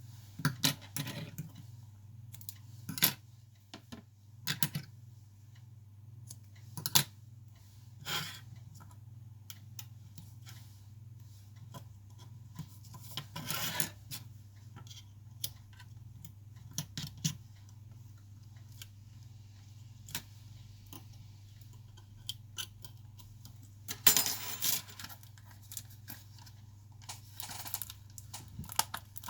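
Small hand tools clicking, tapping and scraping against an iPhone during a battery replacement: scattered sharp ticks, with a longer scraping patch around the middle and another near the end, over a steady low hum.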